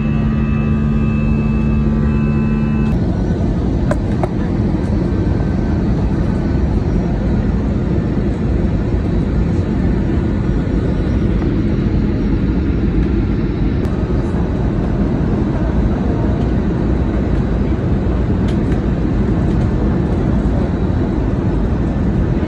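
Loud steady low rumble. A droning hum rides on it for about the first three seconds, then cuts off.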